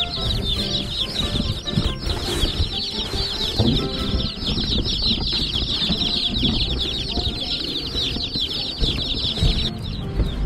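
A cardboard shipping box full of meat-bird chicks peeping nonstop: many high, quick, downward-slurring chirps overlapping into a steady chorus that cuts off near the end.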